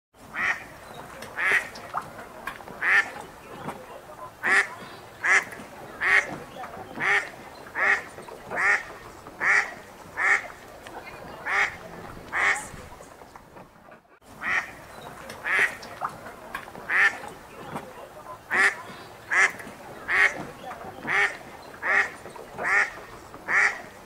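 Ducks quacking in a steady series, about one loud quack a second, over a soft water-like background. The quacking drops away briefly about halfway through, then starts again.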